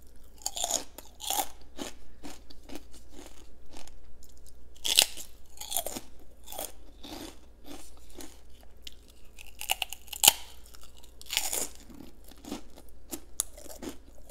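Close-up crunching and chewing of crisp deep-fried prawn crackers, with sharp crunches at irregular intervals. A few louder bites come midway.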